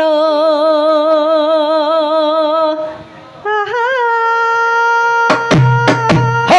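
Javanese karawitan singing: a sinden (female vocalist) holds a long note with a wide vibrato, breaks off briefly about three seconds in, then holds a second, higher, steadier note. Near the end the kendang drum comes in with a handful of deep strokes.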